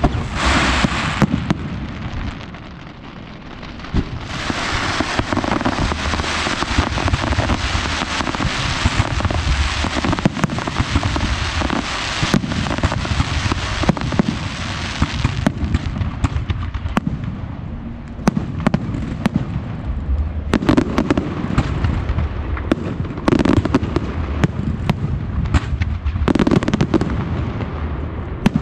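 Fireworks display: aerial shells bursting over spark fountains, a dense crackling hiss studded with sharp bangs. It dips briefly a couple of seconds in, then after about fifteen seconds thins out into separate booms and pops.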